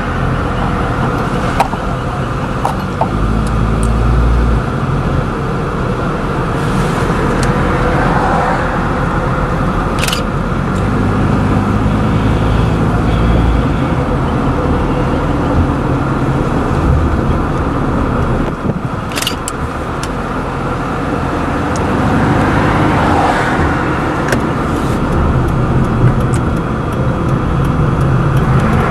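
Car driving along a road, steady engine and tyre noise heard from inside the vehicle, with a few sharp clicks or knocks now and then.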